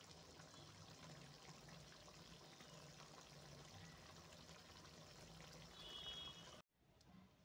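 Faint, steady watery hiss that cuts off suddenly near the end, with a brief high tone just before it stops.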